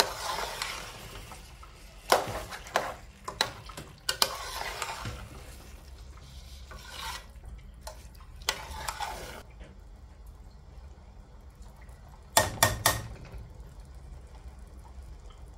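Metal slotted spoon stirring rice and tomato sauce in an aluminium pot: a scraping stir broken by sharp knocks of metal on the pot. It goes quieter about two-thirds of the way through, then there is a quick run of knocks near the end.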